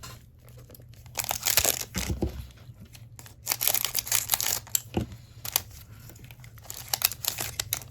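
A trading-card pack's wrapper being torn open and crinkled by hand, in several bursts of crinkling.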